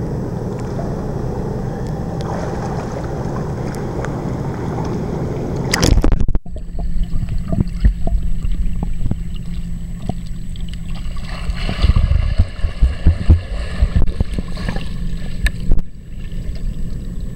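Pool water lapping steadily heard above the surface, then a splash as the microphone plunges underwater about six seconds in. From there the sound is muffled underwater noise with irregular low thumps and bubbling from a swimmer's strokes, busiest in the last few seconds.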